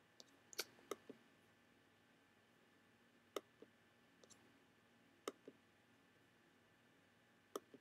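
Faint computer mouse clicks in four quick pairs spread a couple of seconds apart, over a low steady hum.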